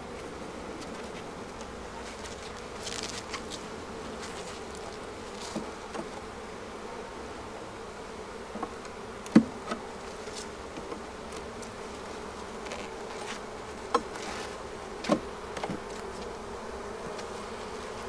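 Honeybee colony buzzing steadily from an opened hive, a loud, busy colony. A few sharp clicks and knocks of a metal hive tool working the wooden frames loose, the loudest about halfway through and two more a little later.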